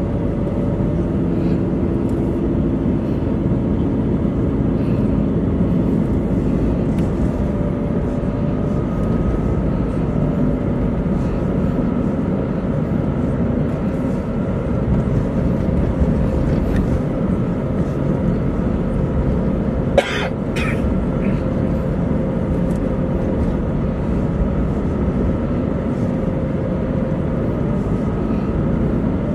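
Steady road and engine noise heard from inside a moving car's cabin, with a faint steady hum over it. About two-thirds of the way in come two short, sharp sounds close together.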